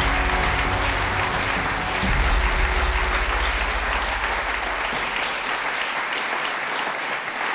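Audience applauding steadily, with music underneath that fades out about halfway through.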